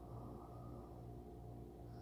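Faint, slow breathing of a person feigning sleep, breathed close to the microphone as soft snoring, over a steady low hum.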